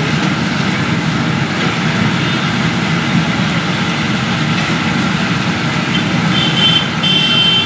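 Steady roar of a stove's open burner flame under a kadhai, with hot oil sizzling as moong dal fries at high heat. Near the end a high-pitched tone sounds twice, briefly.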